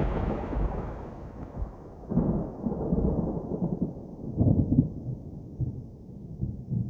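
Thunder rolling and dying away, with the rain hiss fading out over the first two seconds. Deep rumbles swell again about two seconds in and once more at about four and a half seconds, then fade.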